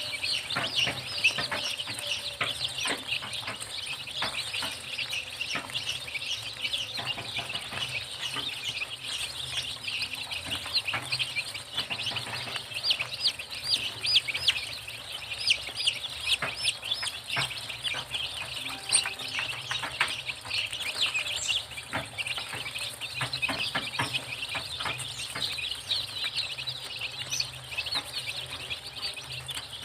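A crowd of day-old desi chicks peeping nonstop: a dense chorus of short, high chirps.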